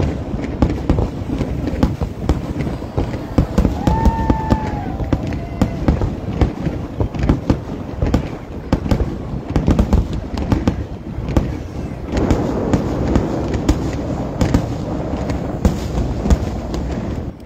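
Fireworks display: aerial shells bursting in rapid, overlapping bangs with crackle between them, a dense barrage. A short high tone sounds briefly about four seconds in.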